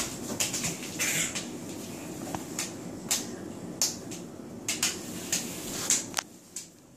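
Scattered sharp taps and slaps, about a dozen, of small children's hands patting a tile floor.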